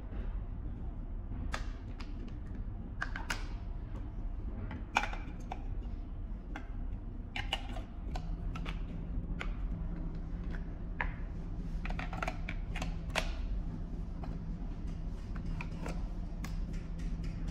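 Irregular clicks, taps and crinkles of plastic parts being handled: a battery pack, a plastic bag and a small plastic case of an electronic ignition starter for exothermic welding, with one louder knock about five seconds in. A steady low hum runs underneath.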